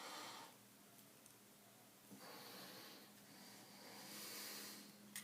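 Near silence: a few soft breaths close to the microphone over a faint steady low hum.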